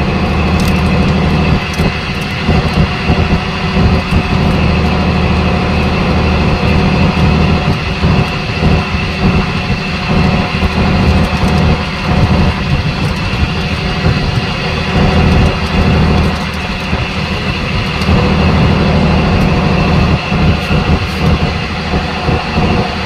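Fishing boat's engine running steadily: a loud, low, even drone.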